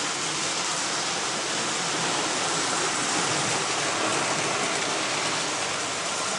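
Hornby model trains running on the layout's track: a steady, even noise of wheels on rails and small electric motors.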